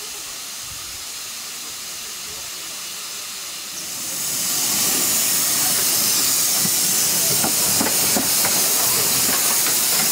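Narrow-gauge steam tank locomotive Sea Lion hissing steam, the hiss jumping much louder about four seconds in as it gets under way. From about the middle on, sharp clicks and knocks of the engine rolling past over the rails join the hiss.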